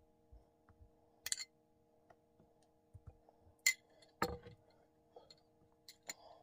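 Glass sauce jar clinking as it is handled and set down on the table: several short, sharp clinks, the loudest a little over halfway through, over a faint steady hum.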